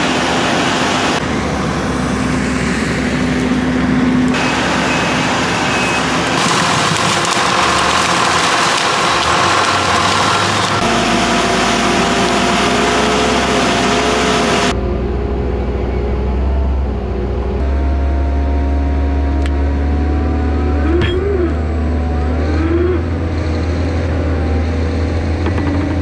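Heavy farm equipment engines running during a winch recovery of a stuck tractor, with abrupt changes from one shot to the next. In the latter half a steady low engine drone dominates, with a couple of brief rising-and-falling tones.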